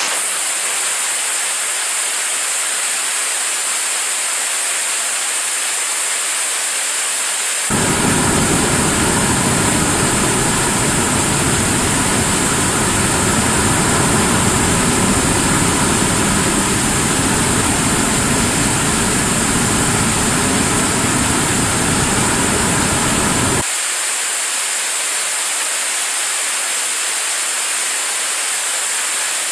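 75-tonne-class kerosene–liquid-oxygen rocket engine firing steadily on a test stand in a long-duration hot-fire test: a loud, constant rush of noise. About 8 s in it suddenly gains a deep rumble, which drops away again just before 24 s.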